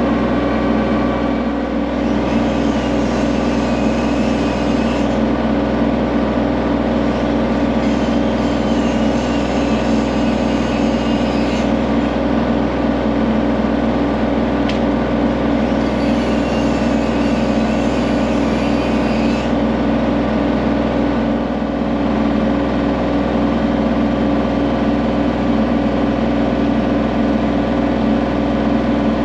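An engine running steadily under load, with a high, wavering squeal that comes and goes three times over it.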